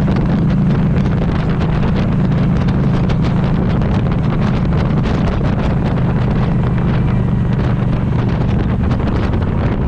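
A steady low mechanical drone, as of a vehicle running, with wind noise and crackle on the microphone.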